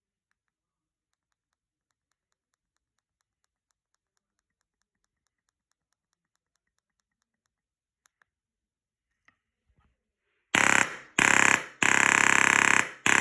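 G&G Fire Hawk HPA airsoft gun firing in rapid bursts: three bursts in quick succession starting about ten and a half seconds in, the last one longest, with a fourth starting at the very end. Before that only faint, regular ticking.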